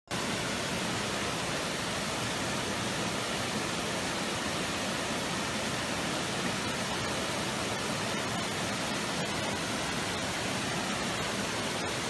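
Water rushing steadily over the small cascades of a forest stream.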